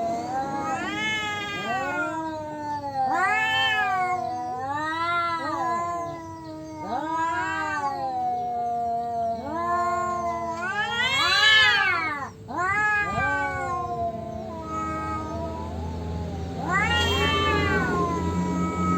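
Two tomcats caterwauling at each other in a territorial standoff. Their long, wavering, overlapping yowls rise and fall in pitch, one voice lower and steadier, the other arching higher. The loudest is a high rising-and-falling wail about two-thirds of the way through.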